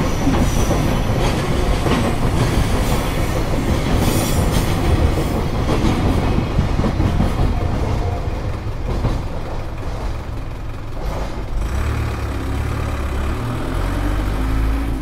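Freight train's wagons rolling past, wheels clattering over the rail joints with some wheel squeal, easing a little about halfway through.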